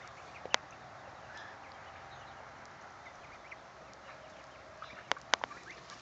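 Chinese goslings peeping faintly while swimming in a plastic kiddie pool. Sharp clicks come once about half a second in and three times close together near the end.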